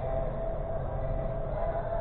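Steady low hum and hiss of a large indoor sports hall, with a faint steady tone held throughout.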